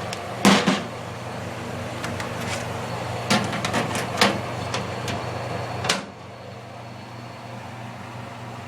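Vintage Sears Coldspot 30 dehumidifier running: its compressor and fan make a steady hum under a hiss. Several knocks and clunks of handling fall in the first six seconds. With the last of them, about six seconds in, the hiss stops and the unit sounds quieter and duller.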